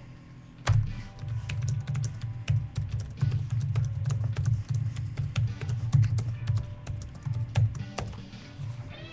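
Typing on a computer keyboard: rapid, irregular key clicks that start about a second in and stop near the end.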